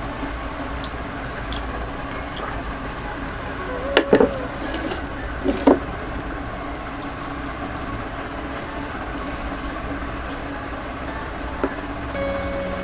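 A few light clinks and knocks of kitchen utensils being handled, in two quick pairs about four and five and a half seconds in and once more near the end, over a steady low background hum. A steady musical tone comes in just before the end.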